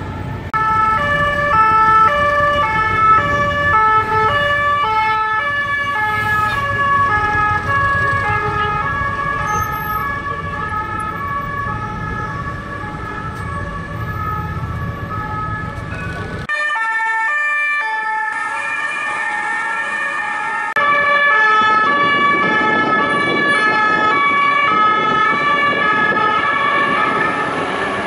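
French police two-tone sirens, alternating steadily between a high and a low pitch, over city traffic. The sound changes abruptly twice, about 16 and 21 seconds in, as different passing vehicles come and go.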